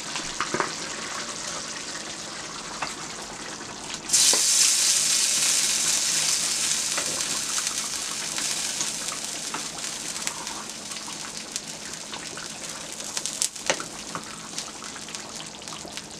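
Tomato sauce simmering and bubbling in a pan, with scattered pops and a stirring utensil knocking on the pan. About four seconds in, a loud sizzle starts as boiled meat goes into the hot sauce, then eases off gradually.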